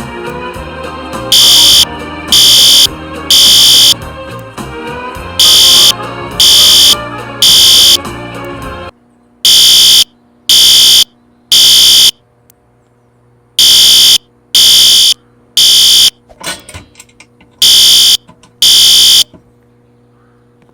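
Fire alarm sounding the temporal-three evacuation tone: three loud, high-pitched half-second blasts, a pause, then again. A pitch-varying sound beneath the blasts cuts off abruptly about nine seconds in. The last cycle stops after two blasts, as the alarm is silenced.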